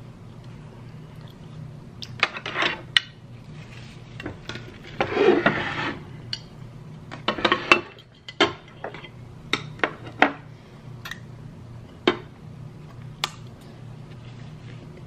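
A metal fork clinking and scraping on a ceramic plate: scattered sharp clinks at uneven intervals, with a longer scrape of crockery about five seconds in.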